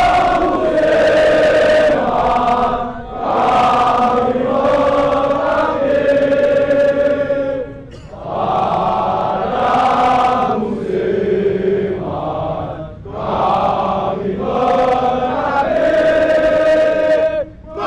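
Large crowd of football supporters singing a chant in unison, in sung phrases broken by a short pause every five seconds or so.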